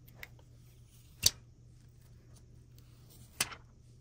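Handling clicks from a plastic power-bank case in gloved hands: a faint click at the start, then two sharp clicks about two seconds apart.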